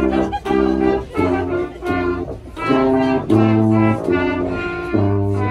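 Small brass band of tuba and upright brass horns playing a tune, the notes changing about twice a second. The tuba's deep bass notes sound out twice in the second half.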